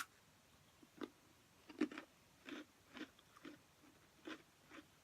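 A bite snapping a thin, crispy pretzel cracker, then crunchy chewing of it, about two crunches a second.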